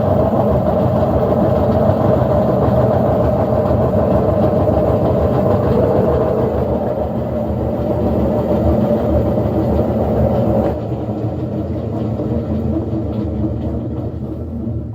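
General Electric top-load washing machine spinning with a loud, heavy rumble and a steady whine. The noise drops suddenly about two-thirds of the way through and fades as the drum winds down. Such loud spinning is the sign of worn bearings and a worn transmission seal.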